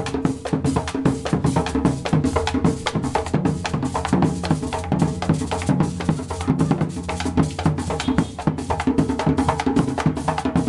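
Background music with a fast, steady percussion beat, about five hits a second.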